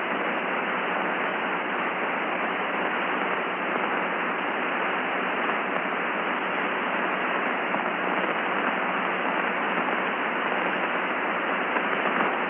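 Steady radio static hiss on an open air-to-ground communications channel, narrow-band like a radio link, with no voice on it.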